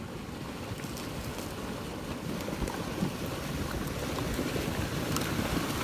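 Flash-flood water rushing in a dense, steady noise that grows gradually louder, with wind buffeting the microphone.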